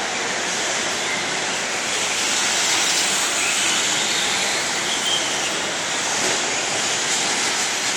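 Steady, dense rushing din of an indoor RC racing hall, with a few faint, brief whines from the RC short-course trucks racing on the dirt track.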